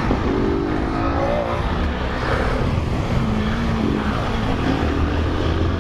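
Small motorcycle engines running on the move under steady wind noise, with one engine revving up, rising in pitch, in the first second or so.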